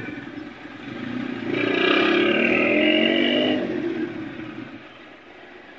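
Vehicles idling and creeping in jammed street traffic. A louder pitched vehicle sound rises about one and a half seconds in and fades away after about four seconds.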